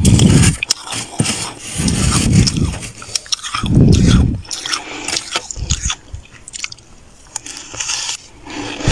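Freezer frost being bitten and chewed off a spoon, crunching loudly in three bouts over the first few seconds. Lighter crackling and scraping follow, and a loud crunch returns near the end.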